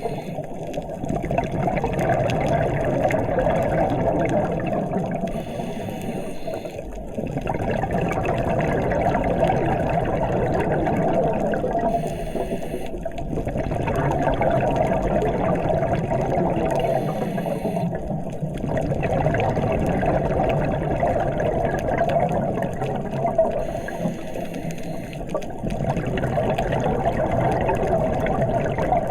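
A scuba diver breathing through a regulator, heard underwater: a continuous rushing and bubbling of exhaled air, with a breath cycle about every five to six seconds.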